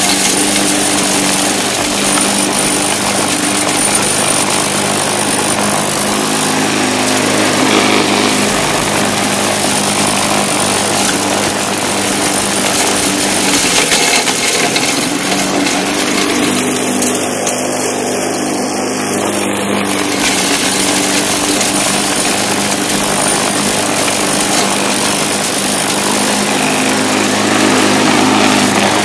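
Bolens walk-behind mulching mower with a Briggs & Stratton single-cylinder engine, running steadily under load while cutting grass.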